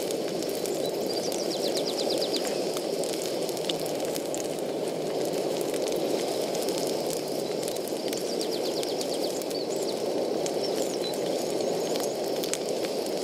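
Square sausage slices sizzling and crackling in a frying pan over a canister gas stove, with the burner's steady rushing beneath. A bird trills twice in the background, about a second in and again near nine seconds.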